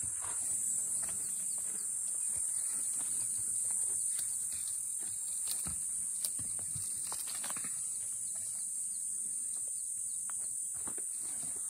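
Steady high-pitched drone of insects in the bush, with scattered crackles and rustles of grass and twigs as an African elephant browses and steps close by.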